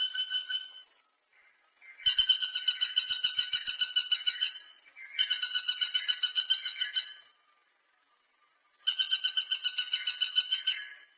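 Woodpecker calling in rapid series of high notes, about eight a second, in bouts of two to three seconds with short pauses between.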